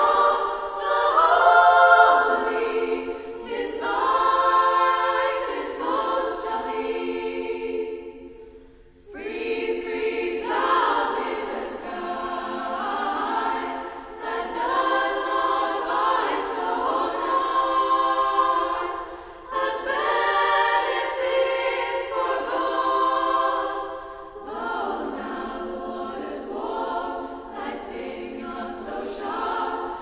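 Girls' choir singing a cappella in several-part harmony, in phrases, with a short break about eight seconds in.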